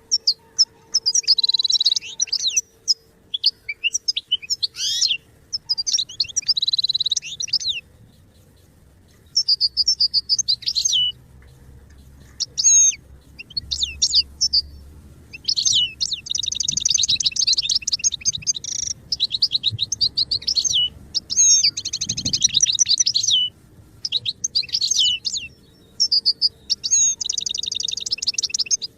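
European goldfinch singing: quick, high twittering phrases and rapid trills, broken by pauses of a second or more.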